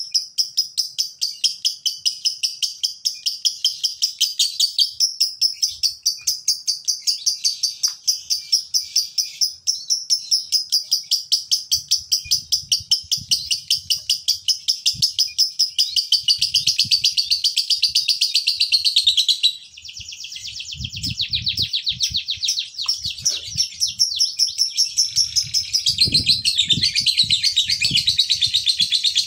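Male Fischer's lovebird chattering in a long, unbroken run of rapid high chirps, about four to five a second: the 'ngekek' song played as a lure to set other lovebirds chattering. It breaks off briefly about two-thirds of the way through, then carries on, with soft low knocks in the second half.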